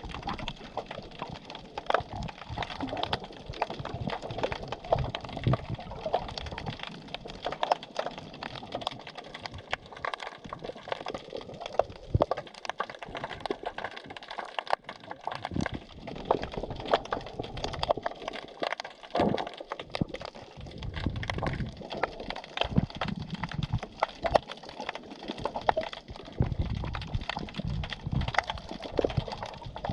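The sea heard underwater through a submerged camera: a dense, irregular crackling of small clicks, with low surges of moving water now and then.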